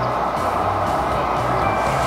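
Background music over a steady rushing noise.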